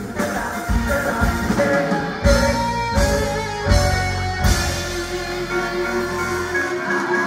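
Live rock band playing with singing: drums, bass, electric guitars and keyboards. Past the middle the drum hits stop and a held chord rings on, its low bass note fading out near the end.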